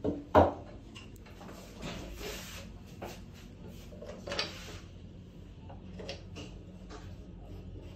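Parts of a dissolution tester's basket and paddle stand being handled and fitted together. A sharp knock just under half a second in is followed by scattered lighter clicks and two short scraping rubs, over a low steady hum.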